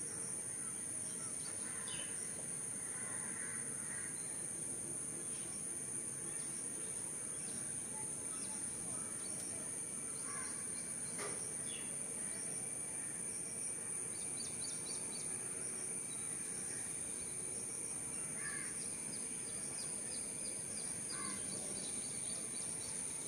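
Steady high-pitched insect drone with scattered short bird calls over it, and a few quick high clicking trills about two-thirds of the way through and again near the end.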